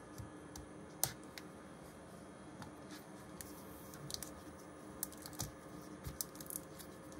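Light clicks and taps of gloved hands handling laptop parts at the display hinge and cable: one sharper click about a second in, then a run of small ticks over the last few seconds.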